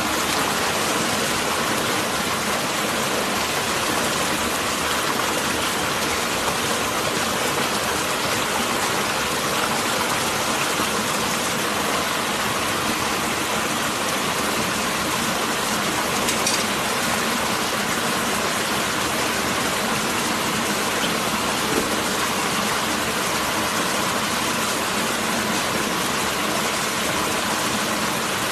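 Small forest-stream cascade pouring steadily over rock, a constant rush of water.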